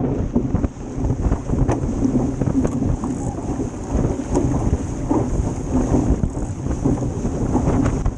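Wind buffeting the microphone over water rushing and hissing along the hull of a Club 420 sailing dinghy moving fast and heeled, with short splashes of spray now and then.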